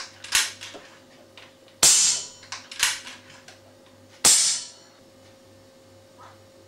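Two sharp, muffled shots from a .177 Webley FX2000 air rifle fitted with a Sirocco SM11 baffle silencer, about two and a half seconds apart. Each is preceded by a softer, shorter sound.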